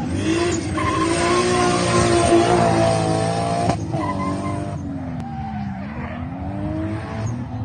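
A drift car sliding under power: the engine is held high with tyres squealing for the first few seconds, then after an abrupt break the engine note dips and climbs again as the slide goes on.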